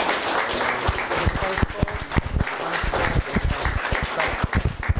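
Audience applauding: a dense patter of hand claps that thins out into more separate claps toward the end.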